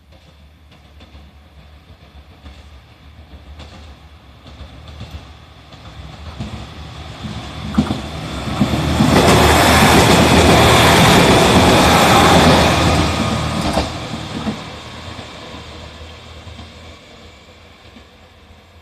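JR Shikoku 2000 series diesel tilting train passing through the station while accelerating: its diesel engines and wheels on the rails build up, run loud for about four seconds in the middle, then fade as it moves away.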